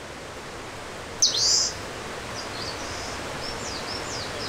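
Small songbird calling: one loud high call about a second in, then a run of short, quick high chirps over a steady faint outdoor hiss.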